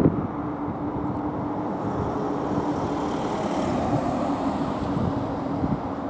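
Steady road traffic noise from vehicles on a bridge, with a steady low hum running through it.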